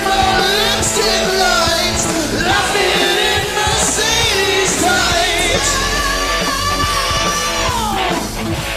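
Loud rock song with a lead singer over a full band, the voice holding and bending long notes and sliding down on one long falling note near the end.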